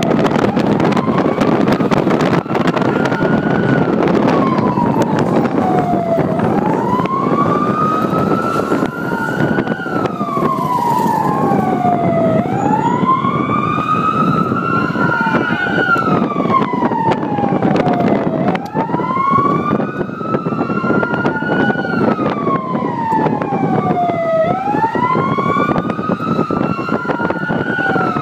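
Vehicle siren sounding a slow wail, its pitch rising over a few seconds and dropping back, about once every six seconds. A second wail overlaps out of step at times. Beneath it runs a steady rushing noise of a moving vehicle and wind.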